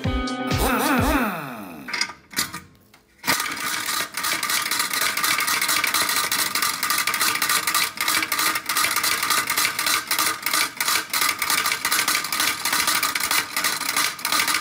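Background music with a sweeping transition glide for about two seconds, then a homemade scrap-built machine hammer running: a fast, continuous metallic clatter of rapid strikes.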